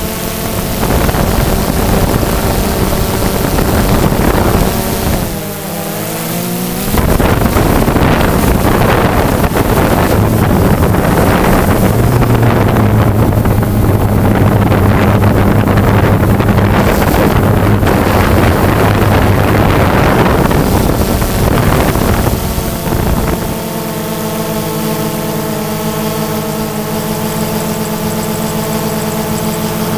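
Multirotor drone's electric motors and propellers whining in several tones at once, dipping and then rising in pitch a few seconds in. Wind rushes over the microphone through the middle stretch, and a steadier whine returns near the end.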